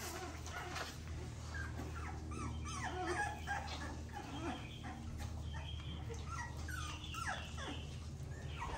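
Four-week-old XL pitbull puppies whining and yelping in many short cries that glide up and down, over a steady low hum.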